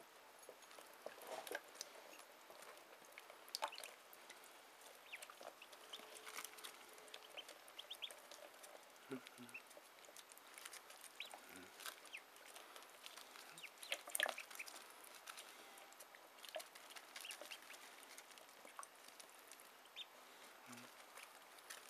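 Two-day-old ducklings peeping softly: scattered short, high peeps, with a few sharp taps or clicks among them.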